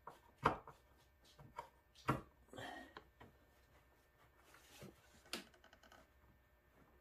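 Plastic snowmobile cowling panel being worked into place by hand. It gives scattered clicks and knocks, the sharpest about half a second in, about two seconds in and about five seconds in, with lighter ticks between.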